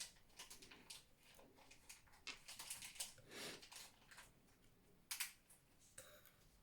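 Faint, scattered clicks and brief rustles of small objects being handled, a little louder about halfway through and again past five seconds in.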